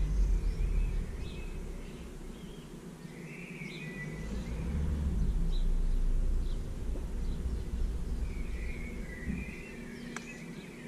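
Birds chirping and warbling in snatches, over a low rumble of wind on the microphone that swells up through the middle.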